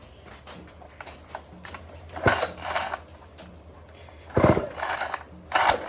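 Old chainsaw's recoil starter cord yanked three times, each pull a short rasping burst, with the engine not catching.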